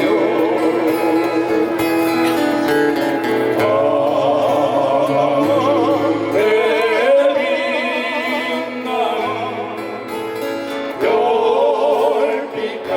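Live ballad music between sung lines: a sustained melody with wide vibrato over guitar and steady bass notes.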